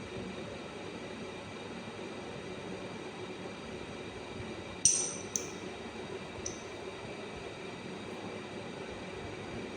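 Three light clinks of a small hard object, the first loudest, each with a brief high-pitched ring, over a steady hiss.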